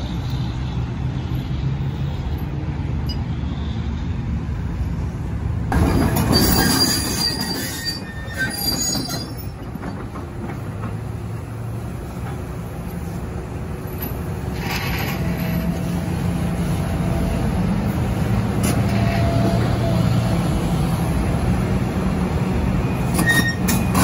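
Large tracked excavator's diesel engine running as the machine travels, with metal squealing from its steel tracks; the squeal is loudest from about six to eight seconds in.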